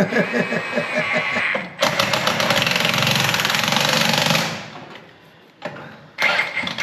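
Impact wrench hammering rapidly on a truck wheel's lug nuts for a couple of seconds, tailing off, then starting again near the end.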